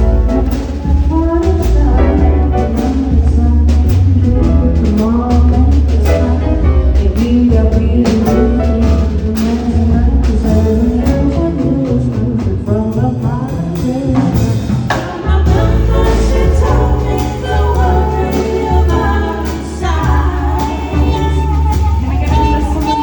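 A live jazz band playing a song with singing, over a strong bass line and drum kit.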